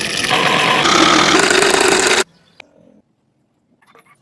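Homemade mini scroll saw running: a loud, dense mechanical buzz that grows louder about a third of a second in and cuts off suddenly a little over two seconds in. A few faint clicks follow.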